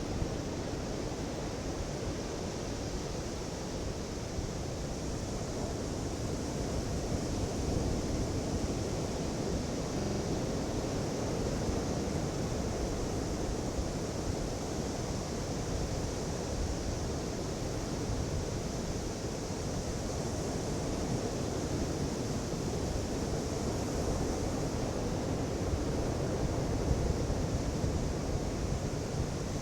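Pacific Ocean surf: a steady wash of waves breaking and rushing on a beach, swelling gently in loudness, with some wind on the microphone.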